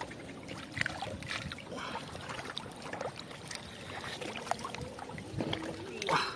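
Irregular splashing and sloshing in shallow floodwater, with many small splashes and clicks.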